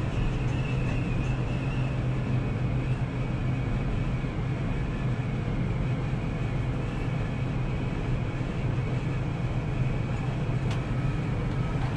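Steady low machine hum inside a Ferris wheel gondola, with one faint click near the end.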